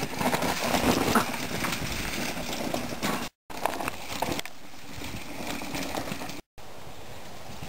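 Mountain bikes riding past on a dirt and stone trail: knobby tyres crunching and rattling over rocks and loose ground, with knocks and clatter from the bikes. The sound cuts out completely for a moment twice.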